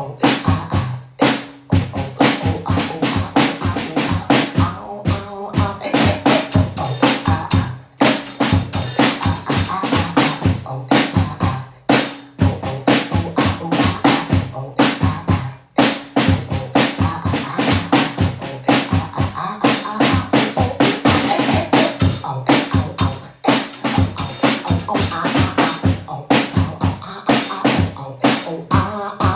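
Beatboxing: a fast, steady vocal drum beat of kick, snare and rimshot sounds, with a few brief breaks.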